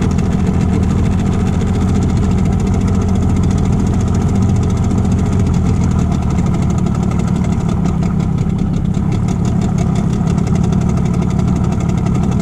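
Boat outboard motor running steadily at low trolling speed.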